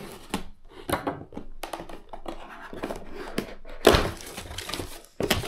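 Hands opening a drone's cardboard box and its packaging: irregular knocks, scrapes and crinkling, with one louder thunk about four seconds in.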